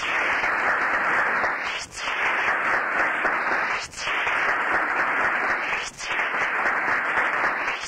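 Audience applauding, a dense, even clatter of many hands, heard on an old quarter-inch reel-to-reel tape recording.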